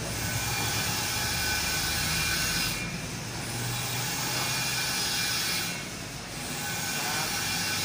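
Steady mechanical noise of running machine-shop machinery, easing off briefly twice.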